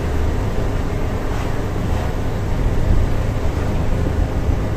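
Isuzu Elf light truck's engine running steadily while driving, heard inside the cab with a deep, even rumble of engine and road noise.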